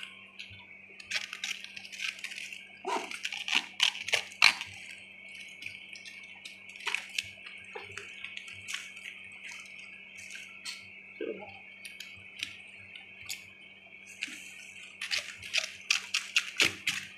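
Limp, wet cabbage leaves being pulled apart and handled by hand: irregular crinkling, squelching rustles in scattered bursts, busiest in the first few seconds and near the end, over a steady faint hiss and hum.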